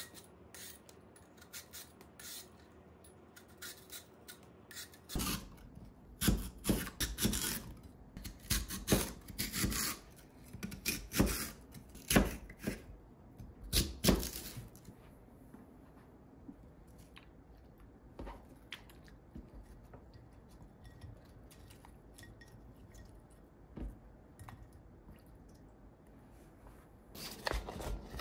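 Kitchen knife slicing a peeled lotus root on a plastic cutting board: a run of sharp, irregular cuts, each one ending on the board, from about five seconds in until about fifteen. Before that there is faint scraping from a peeler on the root. Near the end comes a short rustle of a plastic container being handled.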